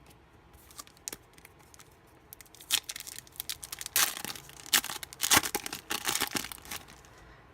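A foil trading-card pack wrapper crinkling and tearing open, in a run of sharp rustles and rips through the second half.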